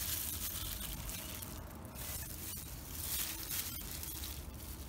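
Soft rustling of dry flour and a plastic glove as a gloved hand dredges chicken breast strips in a flour, starch and baking-powder coating and shakes off the excess, with a couple of light clicks.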